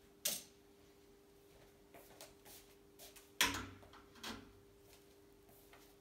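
A few scattered knocks and clicks of things being handled and set down, the loudest a knock with a low thud about three and a half seconds in, over a faint steady hum.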